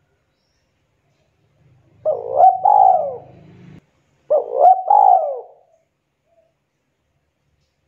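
Spotted dove cooing: two multi-note coo phrases, the first about two seconds in and the second about a second after it.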